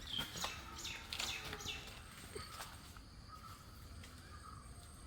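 Birds chirping faintly, with a cluster of short high chirps and a few clicks in the first two seconds and softer warbling notes after that.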